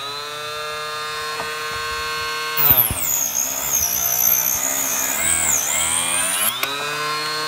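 Drill Master 2-inch benchtop cut-off saw's small electric motor whining at full speed, then the blade biting into wood about three seconds in: the motor's pitch drops and wavers under load while a high screech rides over it. Near the end the cut finishes and the motor whines back up to full speed; the blade has gone half an inch deep.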